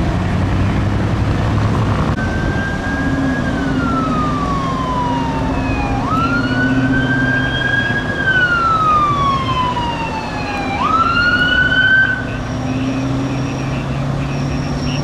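Fire engine siren on a wail setting, sweeping slowly down in pitch and then quickly back up, again and again, over steady traffic and engine noise.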